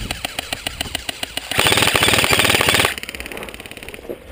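Airsoft electric guns firing full-auto as a fast, even rattle of shots. A much louder burst close by starts about a second and a half in and cuts off abruptly just over a second later.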